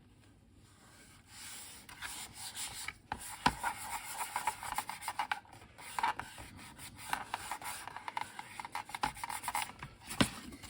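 Fingers rubbing and pressing a self-adhesive keyboard membrane down onto a computer case: an uneven scratchy rubbing, with a sharp tap about three and a half seconds in and another near the end.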